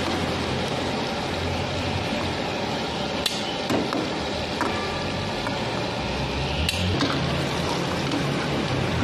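Chicken pieces frying in a karahi of hot lamb fat, a steady sizzle from the bubbling oil, with a couple of metal clinks as the ladle knocks the pan.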